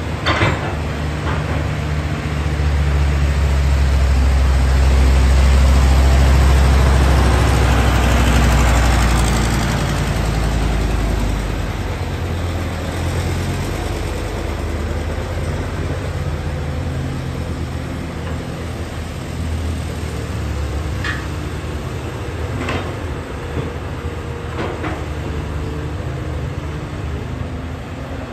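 Diesel engine of a Caterpillar 320D hydraulic excavator running as it digs and loads soil, working harder and louder for several seconds near the start, then settling to a steadier run. A few short sharp knocks come through, one at the start and three in the second half.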